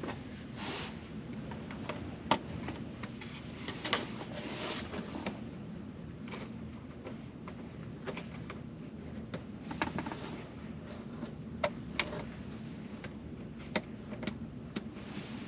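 Scattered sharp plastic clicks, knocks and brief rustles from hands working the rear HVAC control module and its connector into the back of the center console, over a steady low hum.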